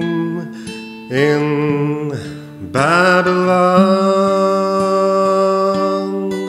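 A man singing with acoustic guitar: a short sung phrase about a second in, then one long held note, over the guitar.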